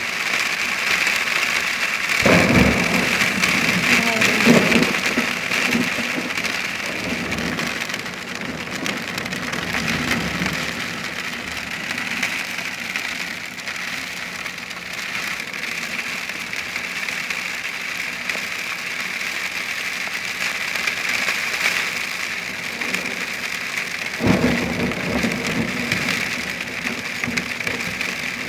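Heavy rain mixed with hail pelting down steadily during a thunderstorm. Thunder cracks and rumbles about two seconds in and again near the end.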